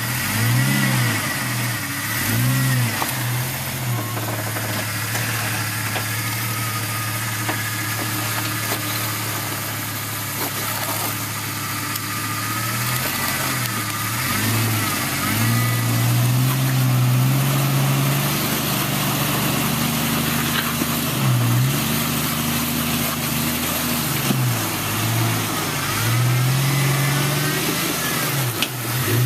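Off-road 4x4's engine revving up and dropping back over and over as it is maneuvered back and forth over rocks.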